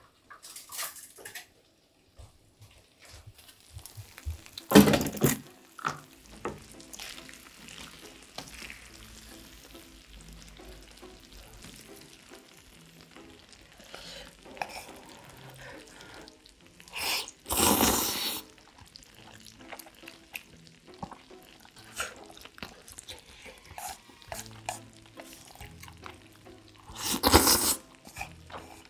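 Close-miked eating sounds: chopsticks tapping a plate, saucy chicken and noodles being picked up and chewed, with three loud bursts that fit noodles being slurped, about five seconds in, midway and near the end. Soft background music plays underneath.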